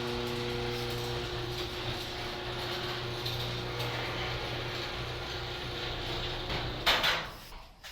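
An HD200D device's mechanism running noisily: a steady whirring and grinding like gears or a ratchet. A brief louder burst comes about seven seconds in, and then the noise drops away sharply.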